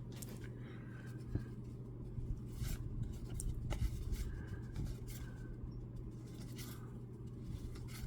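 Baseball trading cards being slid against one another and handled as they are flipped through one by one, in short, faint scrapes and light clicks over a low steady hum.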